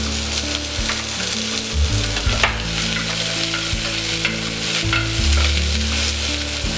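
Sliced onion sizzling in hot ghee in an aluminium pressure cooker while a nylon spatula stirs and scrapes the pan, with a few sharper scrapes, the loudest about two and a half seconds in.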